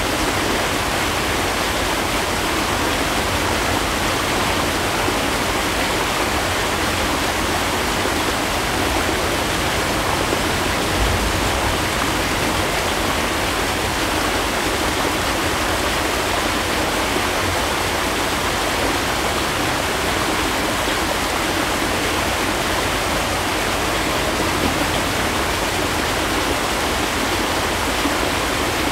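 Small waterfall pouring into a rock pool, with the stream running on below it: a steady, even rush of water.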